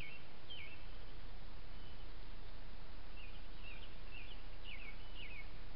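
Small bird chirping: short notes that slur downward in pitch, two near the start and a quick run of about six from about three seconds in, over a steady hiss.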